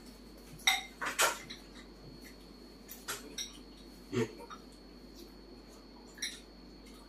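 A small bowl clinking: a handful of short, sharp clinks and knocks, in a cluster about one second in, a few around three seconds, one near four seconds and one near the end.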